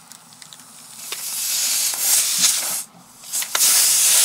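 Compressed air hissing out of a punctured car tyre through the puncture hole, rising after about a second, stopping briefly just before the three-second mark, then hissing on loudly.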